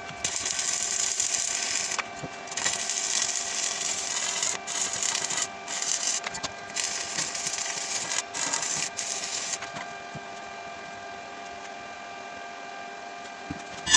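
Electric arc welding of a steel 30×30 profile to a base: a crackling, sizzling arc with brief breaks, stopping after about nine and a half seconds and leaving a quieter steady hiss.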